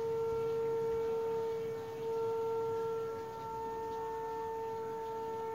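A single pitched note held steadily for about six seconds, a sustained wind-instrument tone.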